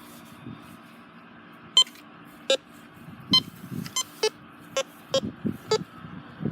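Metal detector giving about eight short electronic beeps in irregular succession as it passes over a buried metal target, over low scraping and scuffing sounds.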